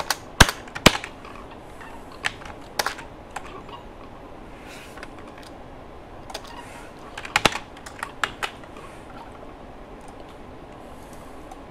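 Computer keyboard typing: isolated keystrokes and short runs of a few strokes, with pauses of several seconds between them. The typing stops about three quarters of the way through.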